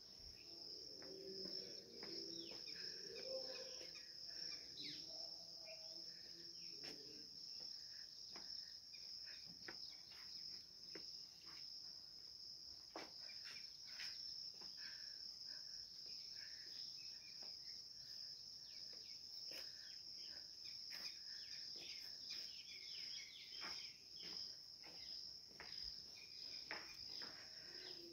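Faint, steady high-pitched chorus of crickets, with scattered short chirps over it.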